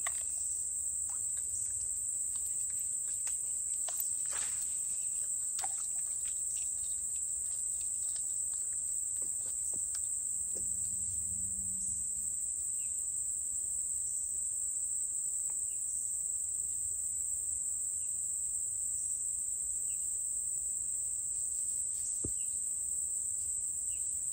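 Steady, unbroken high-pitched chorus of insects in the woods, with a few faint clicks scattered through it.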